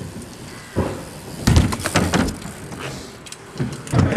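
BMX bike landing and hitting the concrete of a skatepark: a sharp thud about a second in, then a louder cluster of knocks and clattering, with more hits near the end.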